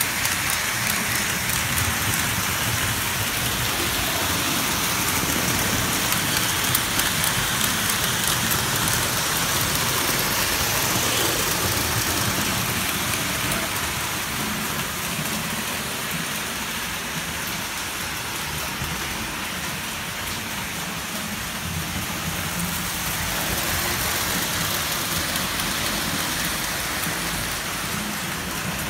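Three-rail O-gauge model train running on metal tubular track: a steady hissing clatter of wheels on the rails, a little quieter midway.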